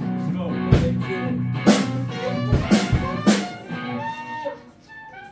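Band music: guitar and bass holding sustained chords, struck through by four loud drum and cymbal hits, then a quieter melodic line near the end.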